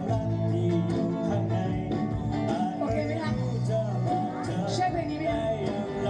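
Live band playing: guitars and a drum kit.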